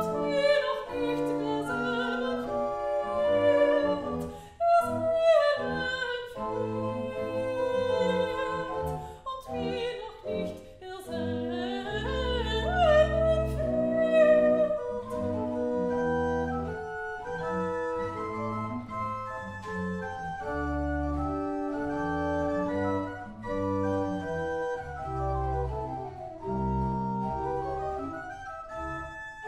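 Soprano singing baroque sacred music with pipe organ accompaniment, the voice with a clear vibrato. About halfway through, the singing stops and the organ plays on alone.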